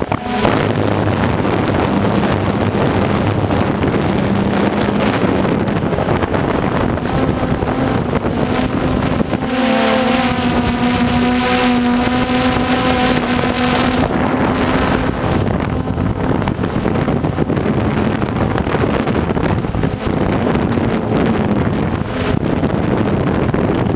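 DJI Phantom 1 quadcopter's motors and propellers buzzing steadily, heard through the GoPro camera mounted on it, with wind buffeting the microphone. From about ten to fourteen seconds in, the buzz grows stronger and slightly higher as the motors work harder.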